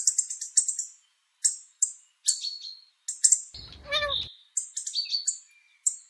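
European goldfinch chirping: short, high chirps and twitters in quick runs, with one longer, lower, wavering call about three and a half seconds in.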